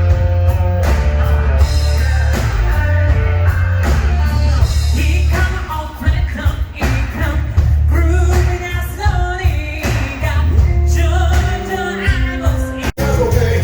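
Pop-rock song with a sung vocal over a steady beat and heavy bass.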